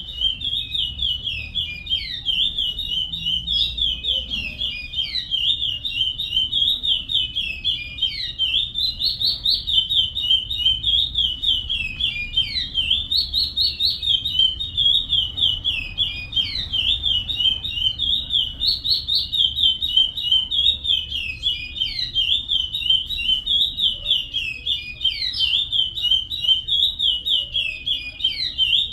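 Curió (chestnut-bellied seed finch) singing a fast, continuous run of high whistled notes in the Paracambi song style, with a downward-slurred note every few seconds.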